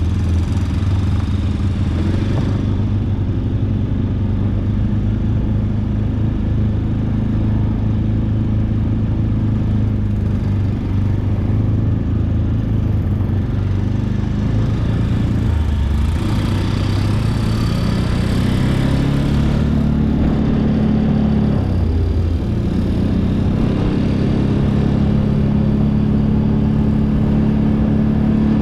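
ATV engine running steadily while riding. About two-thirds of the way through, its pitch drops briefly as the throttle eases, then climbs again.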